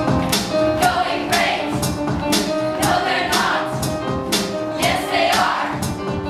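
Music with singing voices over a steady beat of about two hits a second.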